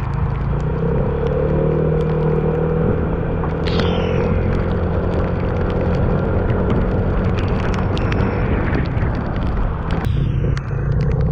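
Motor scooter engine running at a steady speed over a heavy low rumble, with a short high falling whine about four seconds in.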